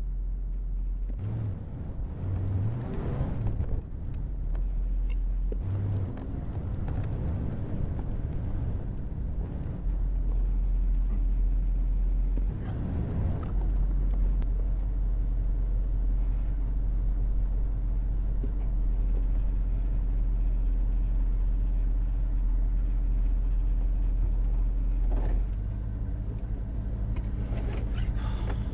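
Motor vehicle driving, heard from inside: a steady low engine and road rumble whose engine note shifts several times in the first half, then eases off slightly near the end.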